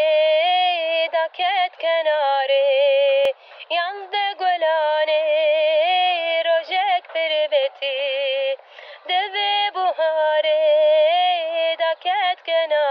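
A woman singing a slow, unaccompanied melody: long held notes with a wide, wavering vibrato and ornamental turns, phrases broken by short pauses for breath.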